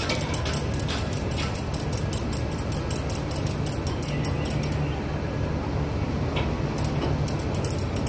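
Heavy diesel engine idling with a steady low hum, under a rapid run of light metallic clicking that breaks off about halfway through and starts again near the end.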